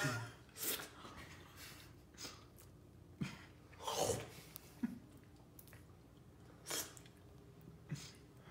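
A person sucking and slurping squished blueberries off his hand, heard as a handful of short separate slurps and snorting breaths, the loudest about four seconds in.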